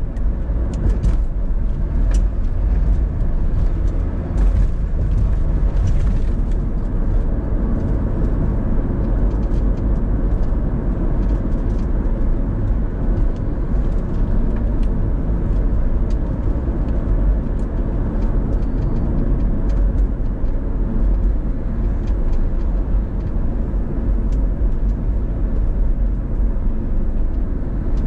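Car driving through town, heard inside the cabin: a steady low rumble of road and engine noise, with a few faint clicks in the first several seconds.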